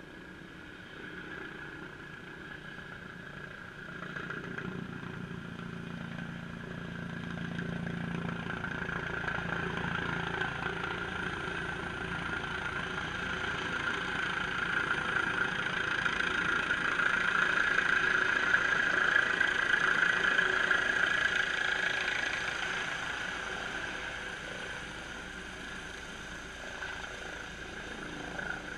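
Airbus H135 (EC135) twin-turbine air ambulance helicopter coming in to land, growing steadily louder as it approaches. It is loudest about two-thirds of the way in, then eases off as it descends to set down.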